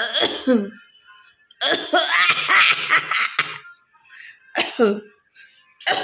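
A woman coughing deliberately in bursts: a short voiced cough at the start, a long harsh coughing fit of about two seconds, then two more short coughs near the end.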